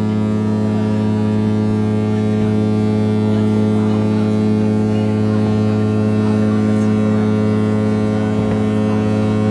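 A ship's horn sounding one long, steady, deep blast, with faint scattered pops of fireworks behind it.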